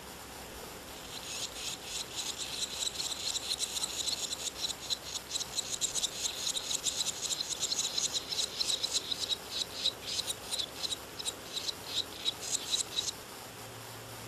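Barn swallow nestlings begging: a fast run of high, shrill chirps that starts about a second in and stops suddenly near the end.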